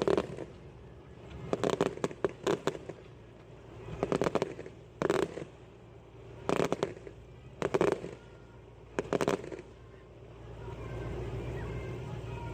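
Fireworks going off in repeated clusters of sharp crackling pops, a burst every second or so. Near the end the pops stop and a steady low rumble takes over.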